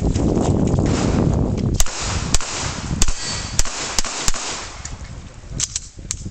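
A low rumble, then a string of about eight pistol shots fired over the last four seconds, some in quick pairs, during a practical shooting stage.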